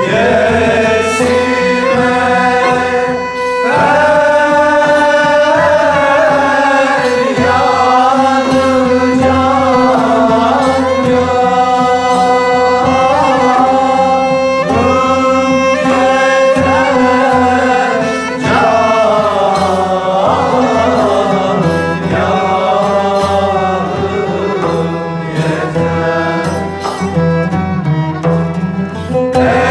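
Choir singing a winding, ornamented melody with instrumental accompaniment, with a short break between phrases about three and a half seconds in.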